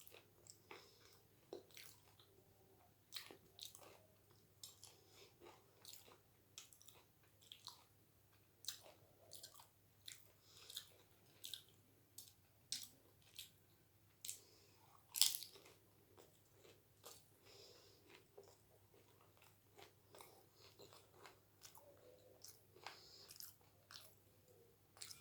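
A person chewing doi fuchka close to the microphone: crisp fried puri shells crunching between the teeth in short, irregular bites, about one or two a second, with one much louder crunch about halfway through.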